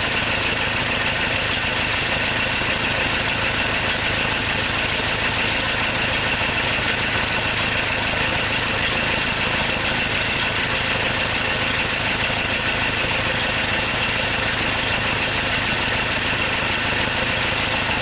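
2013 Ford Ranger diesel engine running at idle, a steady, really loud rough idle that the mechanic takes for a misfire.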